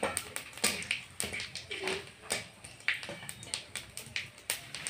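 Cumin seeds and dried red chillies frying in hot oil in a wok, crackling and spluttering with irregular sharp pops.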